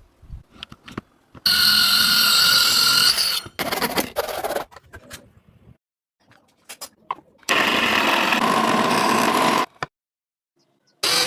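12-volt 775 DC motor driving a homemade PVC mini miter saw's blade through a GT2 belt, run twice for about two seconds each with a steady high whine. Scattered clicks and knocks sound between the two runs.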